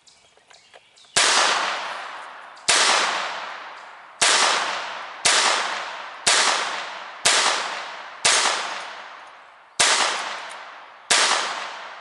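Glock 44 .22 Long Rifle pistol fired nine times at an uneven, slow pace of about one shot a second, starting about a second in. Each shot is a sharp report trailing off in a long echo.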